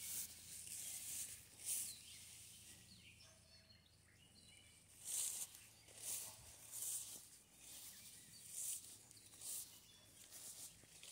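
Footsteps swishing through grass and brush at a walking pace, a soft rustle about every second, with faint bird chirps behind.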